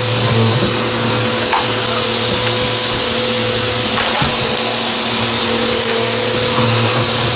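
Vacuum cleaner running steadily: a motor hum with fixed tones under a loud rushing airflow hiss. Two brief crackles come about a second and a half and four seconds in.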